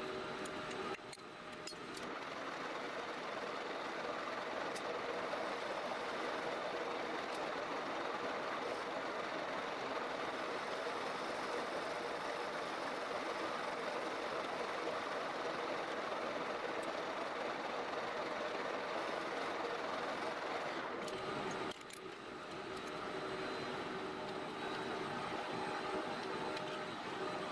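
Metal lathe running with a cutting tool working into a spinning metal workpiece: a steady, dense cutting noise over the machine's running hum. It breaks off briefly about a second in and again about two-thirds of the way through.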